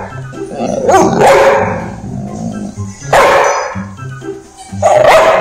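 A Neapolitan Mastiff barking three times, about two seconds apart, over background music.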